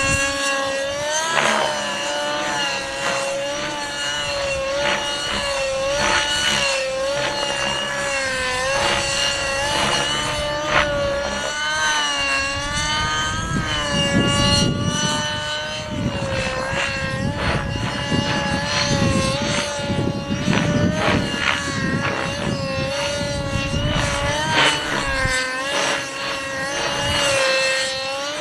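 Nitro RC helicopter (Align 600N) in flight, its two-stroke glow engine and rotor blades running with a steady pitch that dips and rises again every second or two as the head speed changes through manoeuvres. Wind rumbles on the microphone from about the middle of the stretch for several seconds.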